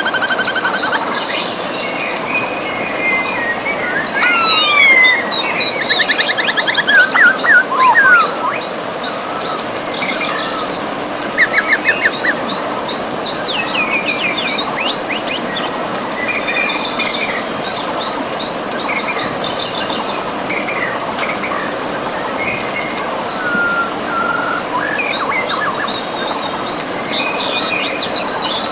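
Several birds singing and calling, with rapid repeated trills, chirps and whistled glides, over the steady rush of flowing river water.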